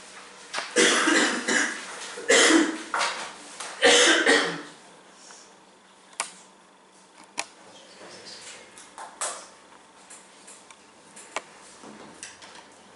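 A person coughing three times in quick succession, then a few sharp light clicks and knocks.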